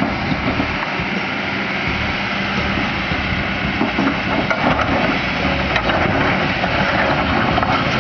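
JCB backhoe loader's diesel engine running steadily under load, with a few short clanks about halfway through.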